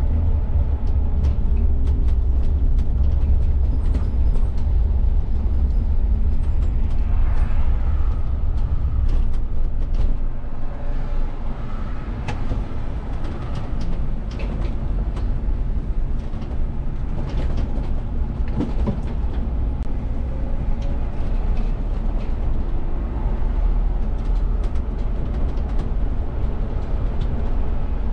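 Inside the cab of a VDL city bus on the move: steady engine and road rumble, with scattered clicks and rattles. The rumble eases about ten seconds in as the bus slows for a roundabout, then builds again as it pulls away.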